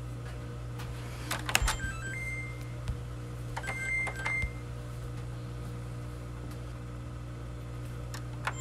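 Clothes dryer control panel being operated: button clicks and short electronic beeps, a few beeps about two seconds in and more about four seconds in, over a steady low machine hum. A couple of light clicks near the end.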